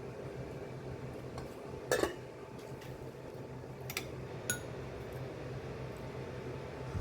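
A few sharp metallic clinks of kitchen utensils against cookware, the loudest about two seconds in and two more near the middle, one with a short ring. A steady low hum runs underneath.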